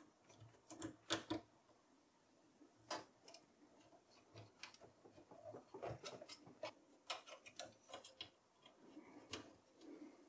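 Faint, irregular small clicks and taps of cable connectors being handled and pushed onto motherboard headers inside a desktop PC case, with a sharper pair of clicks about a second in.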